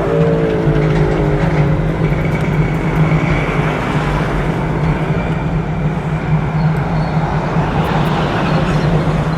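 Steady road traffic noise with a low, constant engine drone, with a short falling tone right at the start.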